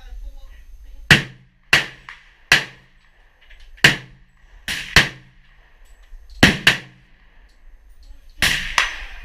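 Gunshots fired one after another at an uneven pace, about ten in all, several in quick pairs.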